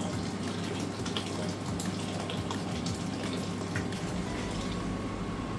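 Hot water poured from a kettle in a steady stream into a cast iron pot of jollof rice in tomato sauce.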